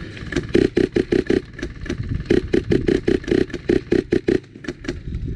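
Shots from an HPA airsoft rifle, an ARP9 driven by a PolarStar Fusion Engine, fired in quick succession at about five or six a second. They come in two strings with a brief break about two seconds in, and a few last shots near the end.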